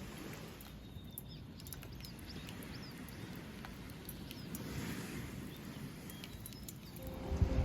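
Seaside outdoor ambience: a steady low rumble of surf, with faint short chirps of small birds and a few sharp ticks scattered through it. Music fades in near the end.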